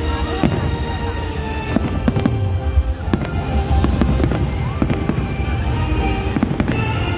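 Aerial fireworks going off in rapid succession, a dense run of bangs and crackles, with music playing alongside.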